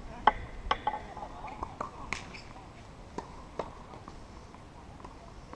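Tennis rally: a ball struck by rackets and bouncing on a hard court, a series of sharp pops in the first four seconds, with faint voices between them.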